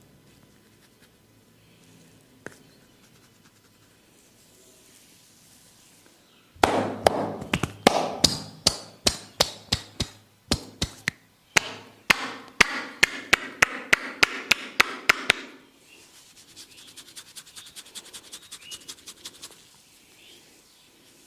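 Percussive head-massage strokes: the barber's hands strike the customer's oiled head in a loud, rhythmic series of slaps, about three a second with two brief breaks. This gives way to a fainter, quicker patter of light taps.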